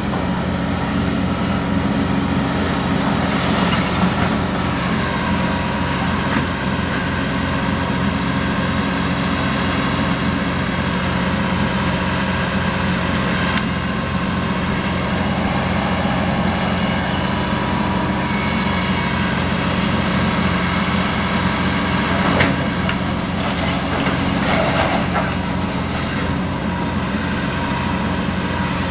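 Diesel engines of Cat hydraulic excavators running steadily during demolition, with crashes and scraping of brick and debris as a masonry wall is torn down; several crashes, the sharpest about two-thirds of the way through, followed by a short cluster of them.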